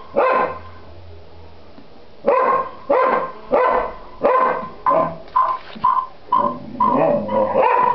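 A dog barking repeatedly: a single bark at the start, then after a pause of about two seconds a run of about a dozen short barks that come faster toward the end.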